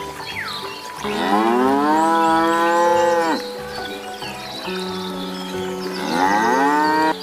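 A cow mooing twice. The first call starts about a second in and lasts over two seconds, its pitch rising and then holding. A shorter call comes near the end.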